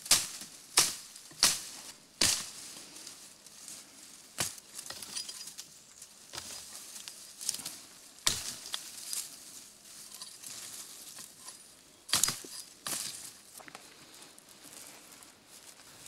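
Sharp cracks of heather stems being cut through with a hand tool, four in the first couple of seconds and then more spaced out, amid rustling of brushwood.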